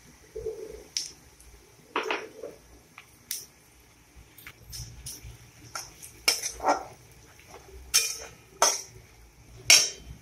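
Flat metal spatula scraping and knocking against a metal kadai while coarsely ground spices are stirred and fried in oil. The strokes are irregular, with the loudest ones bunched in the second half.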